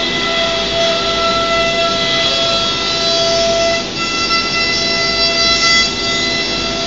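ATC CNC wood router running, its machinery giving a steady whine of several held tones over a hiss.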